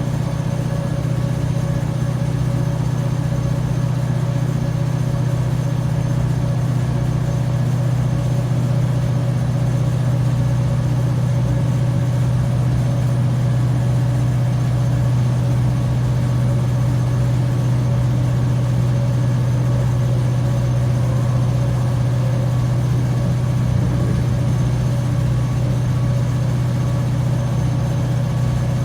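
Class 755/3 bi-mode train's diesel power-pack engines thrashing under load together with their cooling fans: a loud, steady drone that holds one pitch throughout.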